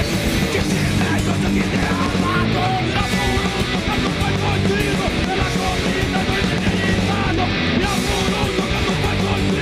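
Punk rock band playing loud and fast: distorted electric guitar, bass and drums, with no break.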